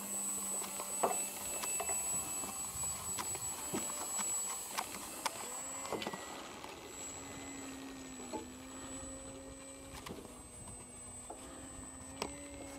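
Electric motor and propeller of a radio-controlled E-flite Timber model plane humming in flight. The hum drops in pitch at the start and comes back higher about seven seconds in, with scattered sharp clicks.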